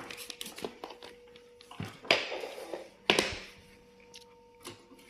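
Handling noises from the fogger's power adapter and cord: a sharp click, a few lighter clicks, then two short scraping rustles about a second apart.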